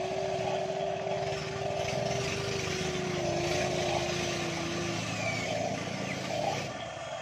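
Electric motors of RC model Kobelco excavators whining steadily as they dig. The whine sags slightly in pitch and stops about five seconds in, over a throbbing drone that swells and fades repeatedly.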